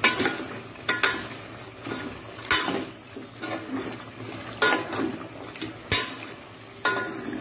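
Metal ladle stirring chicken pieces in an aluminium cooking pot, clanking against the pot several times at irregular intervals, with brief ringing after each knock and scraping in between.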